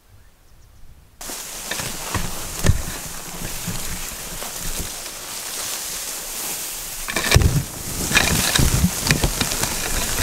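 Dense bush regrowth rustling and scraping against a person and the camera as they force a way through on foot, with many sharp cracks and thumps. It starts suddenly about a second in and grows louder near the end.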